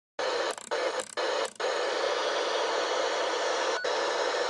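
Intro sound effect of steady radio-static-like hiss, briefly cut out three times in the first second and a half, with a short click near the end.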